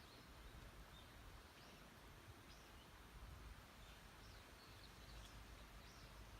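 Near silence: faint outdoor background hiss with scattered faint, short, high bird chirps.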